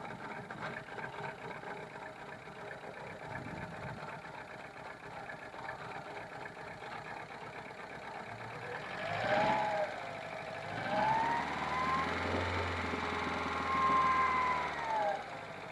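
A 1999 VW Polo 6N1 engine idling roughly with a misfire. Past the middle it is revved up twice, briefly the first time, then held up for a few seconds before dropping back to idle.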